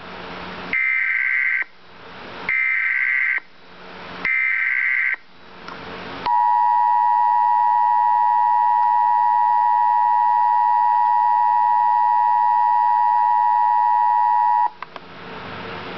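Emergency Alert System header: three short bursts of screechy data tones with hiss between them, then the two-tone EAS attention signal held steady for about eight seconds and cutting off abruptly. It marks the start of a tornado warning broadcast.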